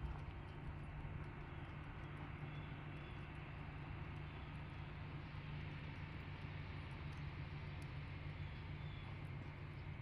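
Steady low background rumble, with a horse's hooves landing faintly on soft arena dirt at a walk and jog.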